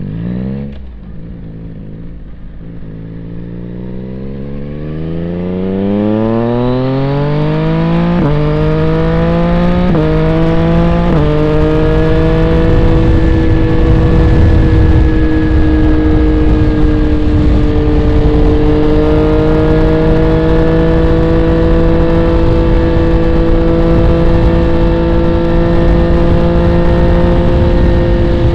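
Yamaha XSR900's three-cylinder CP3 engine through an aftermarket M4 exhaust, accelerating hard. Its note climbs, drops sharply at three quick upshifts, then holds at a steady cruising speed.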